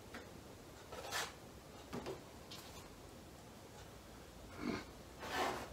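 A plastic body-filler spreader scraping wet filler in about four short strokes, the last two, near the end, the loudest.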